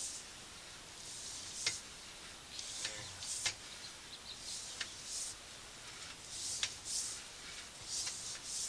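Sewer inspection camera push cable being pulled back out of the pipe: repeated short hissing rubs, about one every second or two, with a few sharp clicks.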